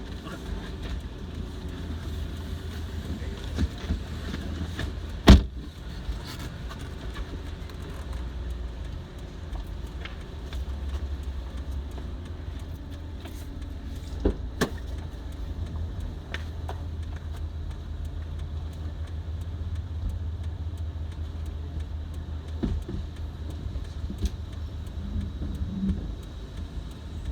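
Steady low rumble of a car heard from inside the cabin, engine and road noise, with a sharp knock about five seconds in and a smaller one around fourteen seconds.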